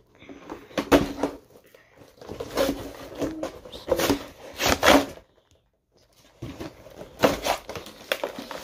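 Cardboard toy box with a clear plastic window being pulled and wrestled open by hand: irregular bursts of rustling, crinkling and scraping packaging, with a short pause a little past halfway.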